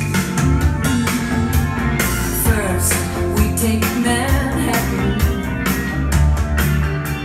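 Rock-style music with singing, guitar and a steady drum beat over a heavy bass line.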